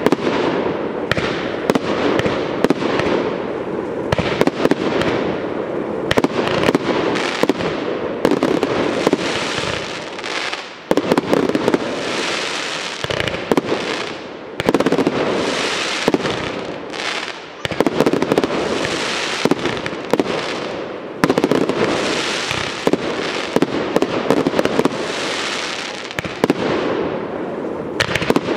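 Professional aerial fireworks display: a rapid, near-continuous run of shell bursts and launches over steady crackling, with only brief lulls.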